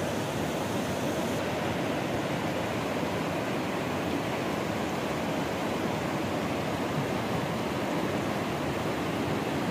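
Swollen, silt-laden mountain river in flood, rushing past in a steady, even roar of moving water.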